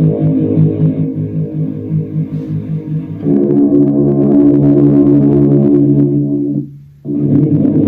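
Guitar played through an effects pedal: for about three seconds the tone pulses on and off about three or four times a second, then a sustained chord rings, cuts out briefly near the end, and playing resumes.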